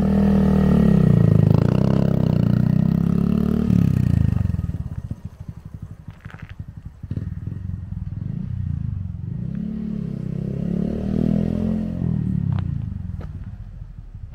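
Honda Monkey 125's single-cylinder four-stroke engine revving as the bike pulls away, its pitch rising and falling through the gears. It dies down about five seconds in, then rises and falls again and fades near the end.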